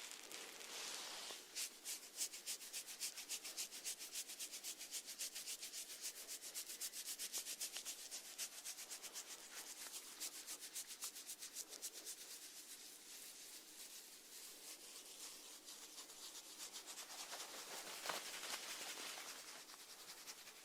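Snail feeding, its rasping mouthparts scraping food in a fast, even run of small strokes, several a second; the strokes thin out after about sixteen seconds into a softer rasp.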